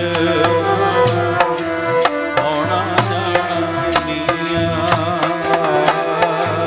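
Sikh kirtan music: tabla drumming in a steady rhythm under held instrumental notes, with a man singing.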